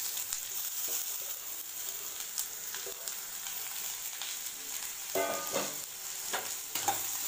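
Diced ridge gourd sizzling steadily in hot oil in an aluminium kadai, just after being tipped into the pan.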